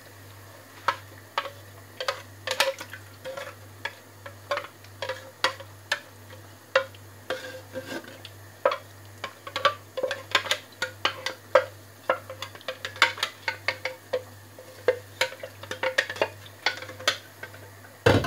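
A spoon stirring and scraping sauce in a metal wok, with irregular clinks against the pan several times a second over a steady low hum.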